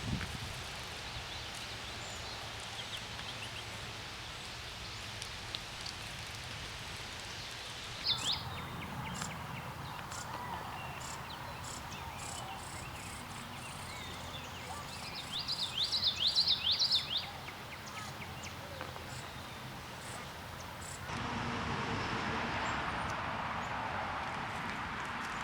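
Outdoor ambience with a bird calling: a quick run of about eight sharp, high notes, with a few single chirps before it. The background changes abruptly twice.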